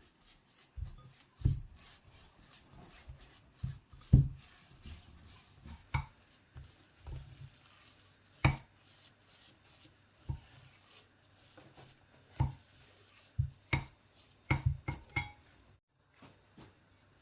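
Kitchen utensils and dishes being handled: about a dozen irregular knocks and thumps, a few with a brief clink.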